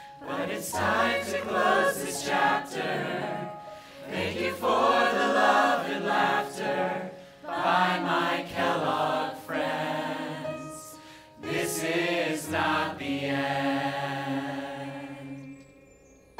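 A mixed chorus of stage performers singing together in harmony over a band accompaniment with sustained low notes, in several long phrases with short breaks between them. It fades out near the end.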